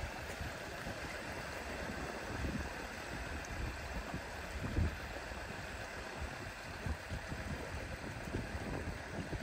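Steady rush of flowing floodwater, with wind gusting on the microphone in uneven low rumbles.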